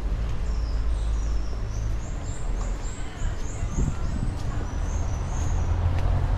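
A small songbird chirping a rapid run of high notes, about three a second, then a shorter run about five seconds in, over a steady low rumble.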